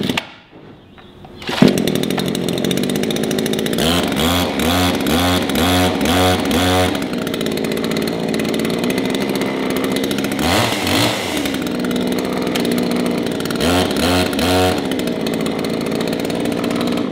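Baumr-AG PRO two-stroke petrol chainsaw started from cold with the recoil starter: it catches on a pull about a second and a half in and runs, its revs rising and falling unevenly several times.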